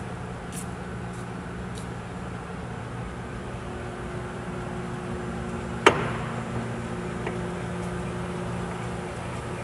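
Steady low machine hum with a few held tones, with one sharp click about six seconds in.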